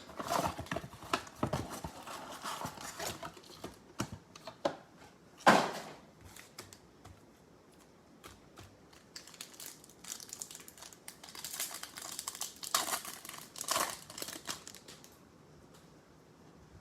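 Packaging of a baseball-card mega box and its packs being torn open and crumpled, in irregular crinkling rustles. There is a sharp tearing burst about five and a half seconds in, and another long stretch of crinkling later on.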